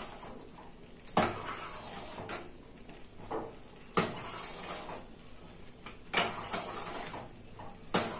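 A spoon stirring a thick sago-and-milk mixture in a stainless steel pan, scraping around the pan with four sharp knocks against it, roughly every two seconds.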